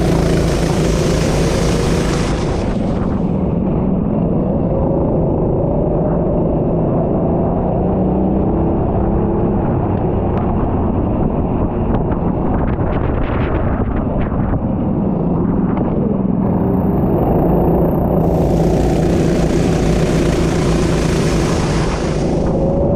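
Racing kart engine running hard, its revs rising and falling. A loud rushing hiss joins it for a few seconds at the start and again near the end.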